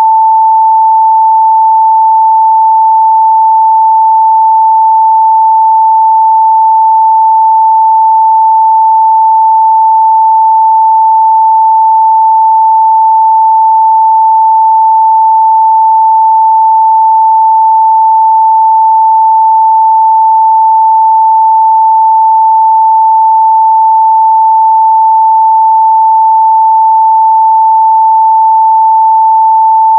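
A pure 885 Hz sine-wave test tone, held steady and loud at one pitch without a break.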